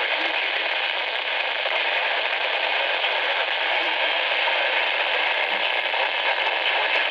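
Steady hiss of radio static from a receiver, with no broadcast audio coming through.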